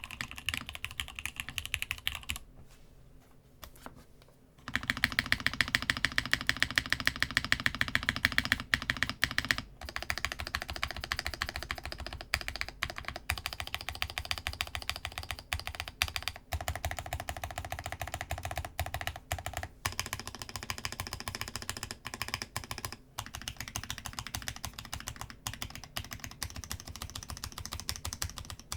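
Fast typing on a Masjewerke Muramasa mechanical keyboard with spring-swapped, lubed Gateron X switches, lubed Cherry clip-in stabilizers and DCD Gondor keycaps, on a desk mat over a wooden desk: a steady rapid clatter of keystrokes. About two and a half seconds in the typing pauses for about two seconds, then resumes louder.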